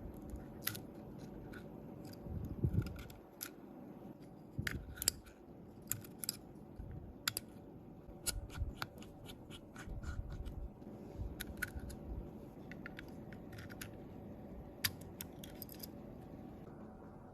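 Small hand tools clicking, snipping and tapping against a phone's parts during disassembly: irregular sharp clicks with a few dull knocks, over a faint steady hum.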